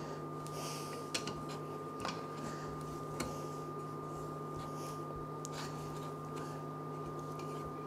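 Wooden spoon stirring and scraping thick cornmeal mash in a stainless steel pot, with a few light knocks of the spoon against the pot. Under it runs the steady hum and thin high whine of the portable electric cooktop heating the pot.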